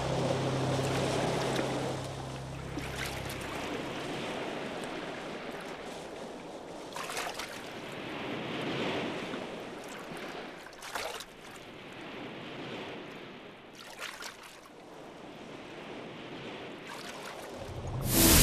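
Surf washing onto a rocky shore, swelling and falling back in waves. A low steady drone underneath fades out about four seconds in, and a loud whoosh comes at the very end.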